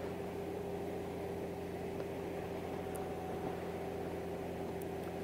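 2019 Honda Gold Wing's flat-six engine running steadily at cruising speed, an even hum that holds its pitch, over road and wind noise.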